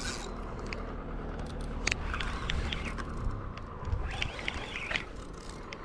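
Spinning reel being cranked while fighting a fish, with scattered sharp clicks over a low rumble of wind on the microphone.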